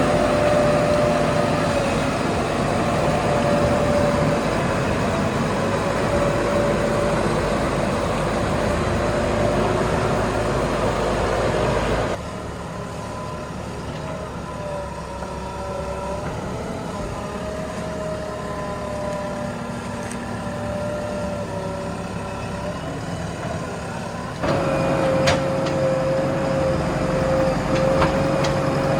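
Backhoe loader's diesel engine running under working load, with a wavering engine tone. The sound drops abruptly to a quieter engine note about twelve seconds in and jumps back up to the louder running about twenty-four seconds in.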